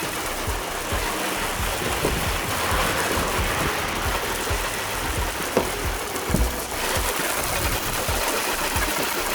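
Water spraying and splashing on a bus roof as it is washed, a steady rushing with scattered low knocks.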